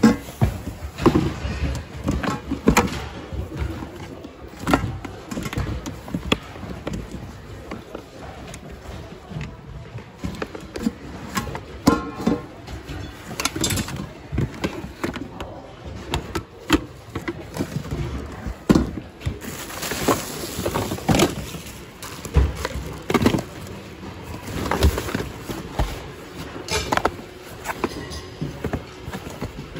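Rummaging through a bin of secondhand goods: plastic and cardboard items knocking, clattering and rustling as they are picked up and moved, many irregular knocks, with music playing in the background.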